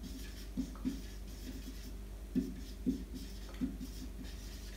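Marker pen writing on a whiteboard: a series of short, irregular strokes and taps as letters are written.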